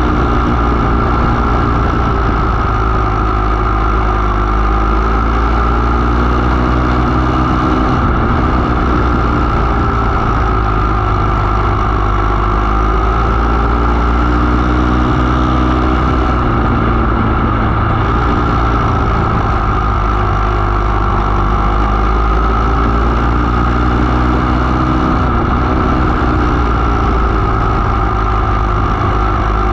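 500 mini sprint race car's engine at racing speed, heard from the cockpit, its pitch rising and falling in a slow repeating cycle as the throttle is opened and eased around the oval.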